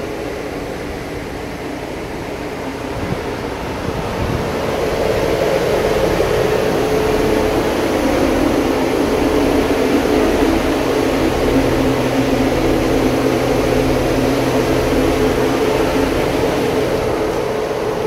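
Steady mechanical hum of a running refrigerated truck, a low drone with a mid-pitched tone over it, growing louder about four to six seconds in.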